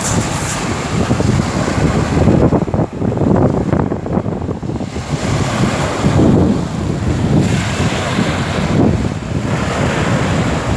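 Sea waves washing in, rising and falling every few seconds, under strong wind that buffets the microphone with a heavy low rumble.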